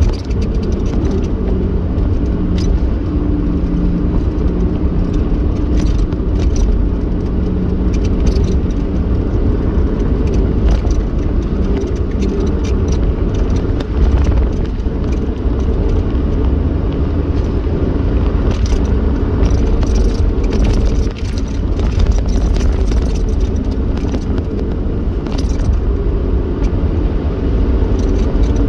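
A car driving at steady speed, heard from inside the cabin: a constant low rumble of engine and tyres on the road, with scattered small clicks and rattles.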